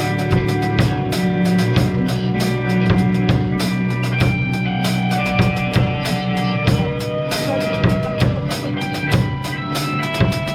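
Drum kit played along to a song: steady kick and snare hits with cymbals over sustained bass and melodic notes.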